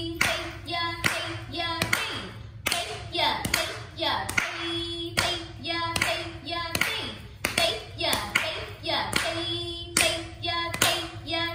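Bare feet stamping flat on a wooden floor in an even beat, about three stamps a second, in Bharatanatyam Thattadavu steps. A voice chants the rhythm syllables over the stamps, with a few long held notes.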